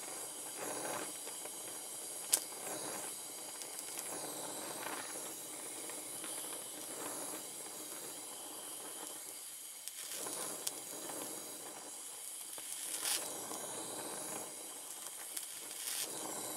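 Oxy-acetylene torch flame hissing steadily as it heats and brazes a joint on a steel hydraulic line, with a sharp click about two seconds in.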